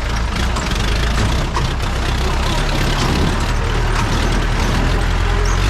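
Jeep engine running steadily while the jeep is under way, a loud low rumble with rattling and road noise over it.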